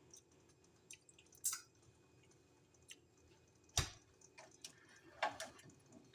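Faint, scattered small wet mouth sounds and soft clicks: a person tasting and chewing food, with one sharper click about four seconds in.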